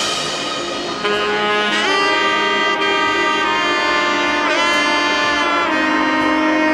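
Background music: a saxophone playing sustained notes, one bending in pitch midway, over a soft accompaniment.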